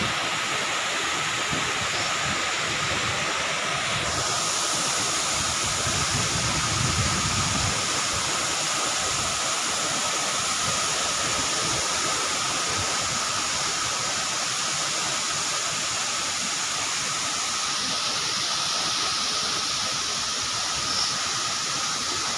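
Tall mountain waterfall plunging down a forested cliff: a loud, steady rush of falling water.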